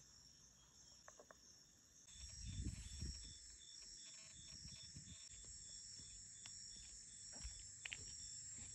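Faint chorus of insects such as crickets: a steady high-pitched trill with a pulsing chirp of about three beats a second joining about two seconds in. A few low rumbles come about two to three seconds in.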